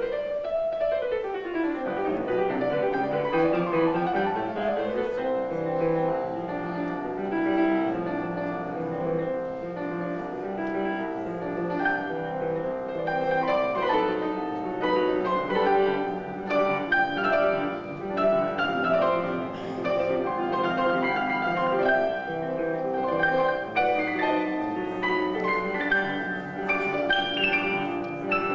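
Grand piano played four hands by two players: a lively duet with dense chords and quick runs, including a fast run sweeping down and then back up in the first few seconds.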